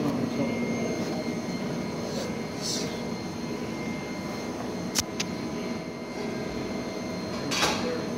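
Steady mechanical room hum holding several constant tones, like ventilation or machinery running. A sharp click comes about five seconds in, with short rustles near three seconds and shortly before the end.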